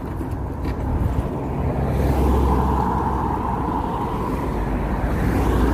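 A car passing close by on the road, its tyre and engine noise swelling about two seconds in, with a deep rumble underneath.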